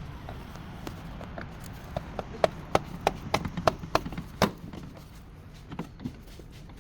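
A run of sharp knocks from hand-tool work on the car's front axle, roughly three a second, from about two to four and a half seconds in, with a few fainter ones near the end.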